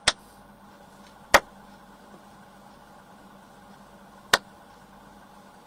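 Three single hand claps: one at the start, one just over a second in, and one about four seconds in, each sharp and short, over a faint steady hum.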